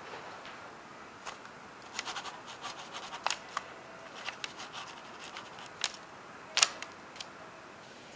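Pen scratching across paper in a run of short quick strokes as a signature is written, with a sharper tap near the end as the pen is laid down on the table.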